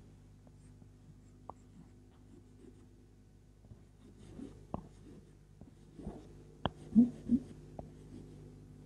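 Chalk writing on a chalkboard: faint scratching strokes and taps of the chalk, busier in the second half, with a couple of louder knocks about seven seconds in. A steady low hum runs underneath.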